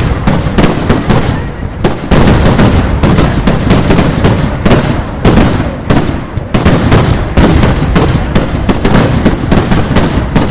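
Kerala vedikettu fireworks: a dense, rapid barrage of loud explosive bangs, several a second and overlapping, with two brief lulls.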